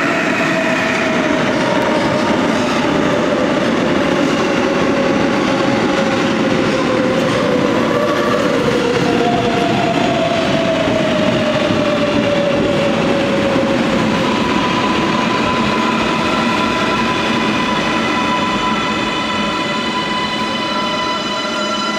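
R188 subway train pulling into a terminal station and slowing to a stop. A steady, loud rumble of wheels on rail carries motor tones that slide down in pitch as the train slows, and a high whine builds near the end.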